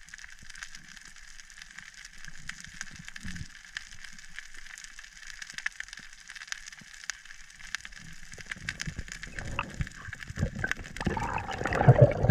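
Underwater ambience picked up by a diver's camera on the seabed: a faint steady hiss with many small scattered clicks. In the last couple of seconds, as the diver swims up to the surface, rushing and sloshing water noise grows louder.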